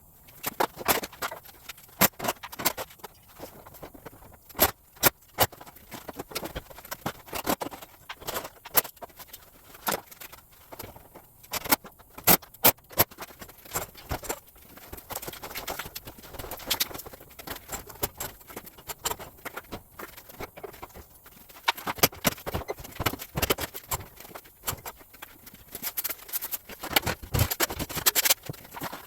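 Irregular clicks, knocks and metallic clinks of tools and hardware being handled during garage door cable replacement work.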